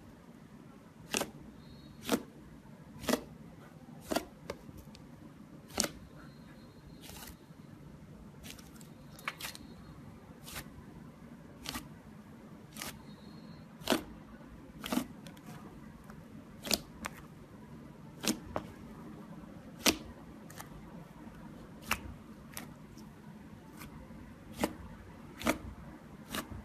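A series of sharp, short clicks or pops, roughly one a second at uneven spacing, over a steady low hum.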